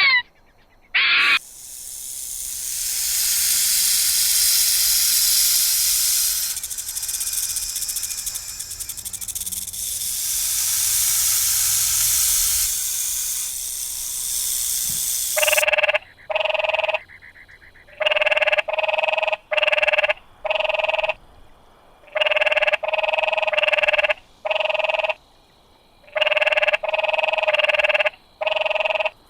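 An animal hissing in a long steady high hiss, followed by a run of short, evenly pitched calls about half a second each, often in pairs.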